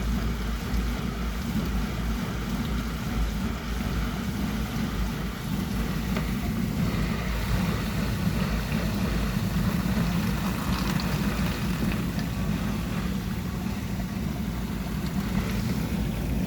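2008 Bosch dishwasher running its wash cycle while still filling: a steady low hum of the pump with water rushing and sloshing inside, the water hiss growing brighter from about seven seconds in.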